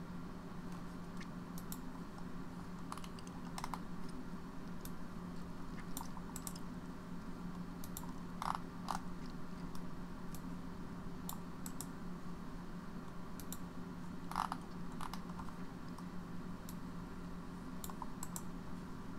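Scattered sharp clicks from a computer mouse and keyboard, a few of them louder, over a steady low electrical hum.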